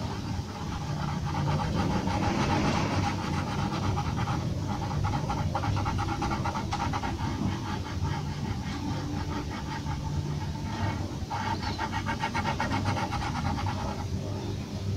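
Graphite pencil scratching on paper in quick, short repeated strokes as fur is hatched in, over a steady low hum.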